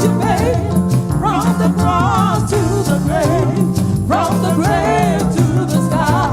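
Gospel music: a voice singing with heavy vibrato over a live band with bass and steady shaken percussion.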